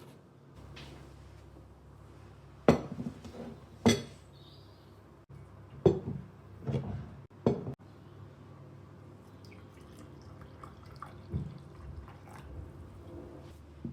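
Crockery being handled: about five sharp clinks and knocks in the first eight seconds, then fainter small clinks.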